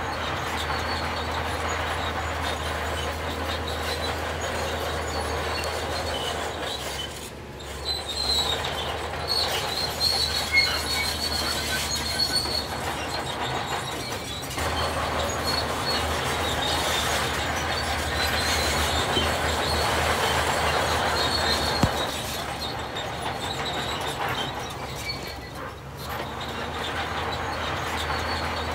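Heavy diesel construction machinery running steadily, with a high metallic squeal and grinding over the engine drone. The squeal is strongest in the middle, and the sound dips briefly about a third of the way in, halfway through, and near the end.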